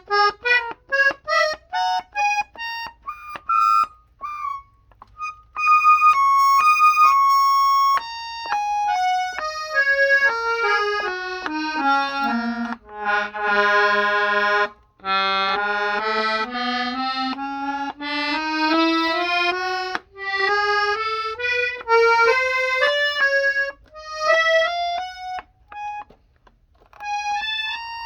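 Hohner Tango II piano accordion, its treble keys pressed one note at a time with the register switch on 2. The notes go up in quick steps at first, run down the keyboard to a held low note around the middle, then climb slowly back up.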